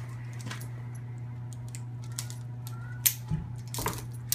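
A few sharp metal clicks and clinks of an aluminium rope wrench and carabiners being handled on a climbing rope, the loudest about three seconds in, over a steady low hum.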